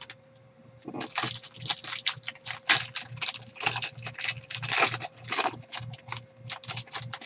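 Wrapper of a Topps Chrome jumbo baseball card pack being torn open and crinkled by hand: a dense run of crackles starting about a second in.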